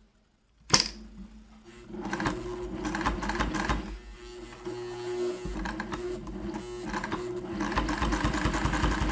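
Singer 401A sewing machine stitching through stacked layers of leather with a standard size 12 needle: a single click about three-quarters of a second in, then the machine starts about two seconds in and runs steadily, easing off briefly in the middle.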